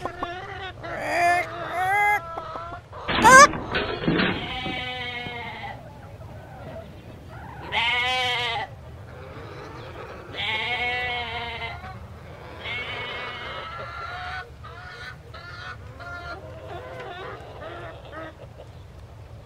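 Farmyard animal sounds: a few short clucks, a loud rising squawk about three seconds in, then four long wavering bleats spread through the rest.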